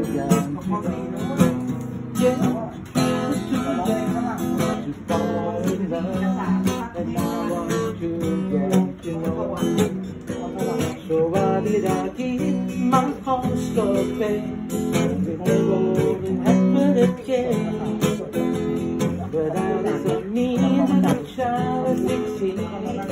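Acoustic guitar strummed steadily while a man sings along.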